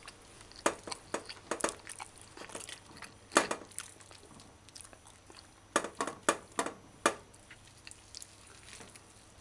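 Metal fork clinking and scraping against a plate as it picks through rice and beans and a piece of fried chicken: scattered light taps, with a few sharper clinks about a third of the way in and again a little past the middle.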